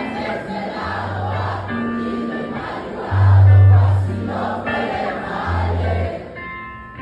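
Live rock band playing at concert volume: electric guitar over long, deep bass notes, with a crowd singing along. The bass note about three seconds in is the loudest.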